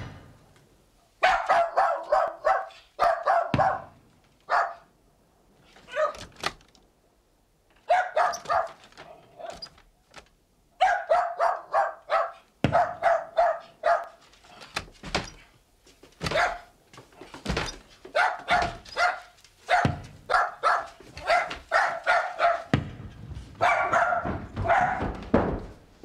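Small dog barking in quick, excited runs of short barks, with a few loud, dull bangs sounding among them.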